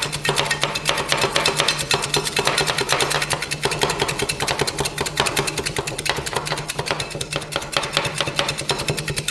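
Metal spatulas chopping and tapping rapidly on the frozen steel plate of a rolled-ice-cream griddle, a fast run of sharp metallic clicks over a steady low hum.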